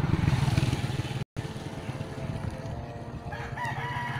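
A small engine running steadily nearby with a fast, even pulsing beat. The sound drops out completely for an instant about a second in.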